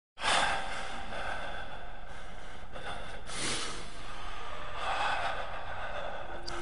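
A person breathing heavily and close: a few noisy breaths over a steady hiss, the loudest about halfway through.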